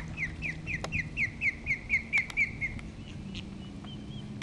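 Osprey alarm calling from its nest: a rapid run of about a dozen sharp, down-slurred whistles, about four a second, that stops nearly three seconds in, followed by a few fainter short notes. It is a warning at intruders too close to the nest.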